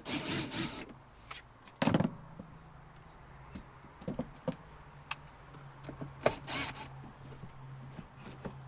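Handling noises: rustling and clicks, with one loud knock about two seconds in. A low steady hum starts just after the knock.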